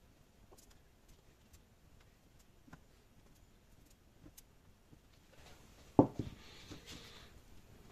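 Faint, scattered taps as a drinking glass is pressed through soft yeast dough onto a silicone mat, cutting out rounds. About six seconds in comes one sharp, much louder knock, followed by a couple of lighter ones and a brief rustle.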